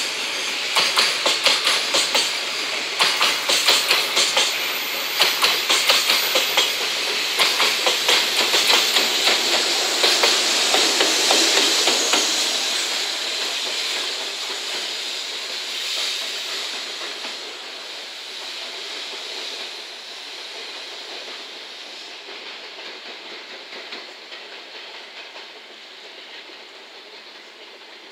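Freight train of JR container wagons rolling past, the wheels clicking in a regular rhythm. About halfway through, the clicking gives way to a smoother hiss as the EF210-300 banking electric locomotive at the rear goes by. The sound then fades steadily as the train draws away.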